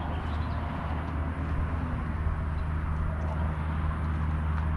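A motor vehicle's engine running as a steady low hum, slowly growing louder as it comes closer.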